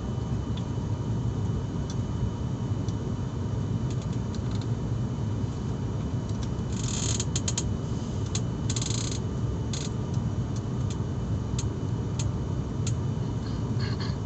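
Steady low drone of an airliner heard inside the passenger cabin, with scattered clicks and rattles from cabin fittings, thickest a few seconds past the middle.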